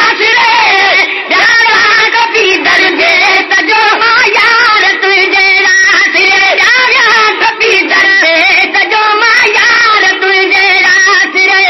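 Men singing a Sindhi naat, a devotional song, with a gliding, ornamented melody over a note held steady beneath it.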